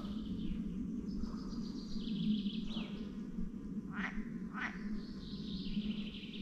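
Frogs calling in a steady chorus, with birds singing high over it and a couple of short sweeping calls about four seconds in.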